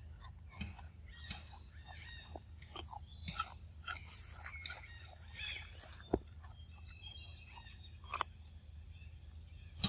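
Pig-tailed macaque chewing and biting crisp green food with its mouth, giving irregular wet crunches and clicks, two sharper ones about six and eight seconds in, over a faint low rumble.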